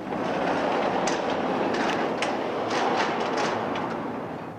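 Sectional garage door being raised by hand, its rollers rumbling and clattering along the steel tracks with scattered sharp clicks, fading out near the end as the door comes fully open.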